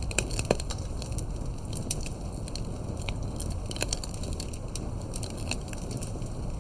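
Wood campfire crackling: irregular sharp pops and snaps, several a second, over a low steady rumble of the flames.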